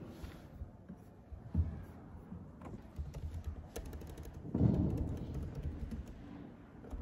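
Typing on a computer keyboard: a run of quick key clicks, with a couple of dull low knocks, the louder one about four and a half seconds in.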